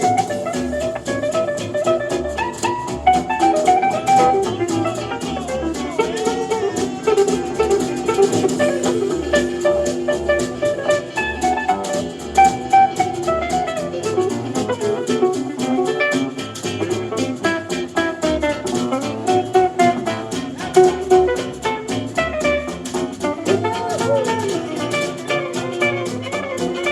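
Live band playing an instrumental tune with no singing: a lead guitar carries the melody with sliding notes over bass and a drum kit keeping a steady beat.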